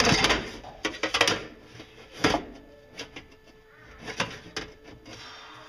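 Sheet-metal tube and a steel bar clamp being handled on a metal workbench: a sharp metallic clank at the start, then scattered knocks and clanks as the seam is pressed and clamped.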